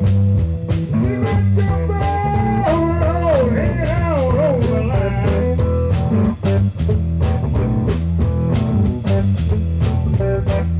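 Live hill country blues band playing: electric guitar, bass and drum kit keeping a steady beat, with a lead line that holds a note and then bends and wavers in pitch a couple of seconds in.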